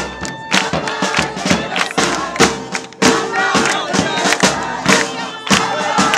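Live swing jazz band playing, with sharp beats about twice a second under held horn notes. A crowd is shouting and clapping along.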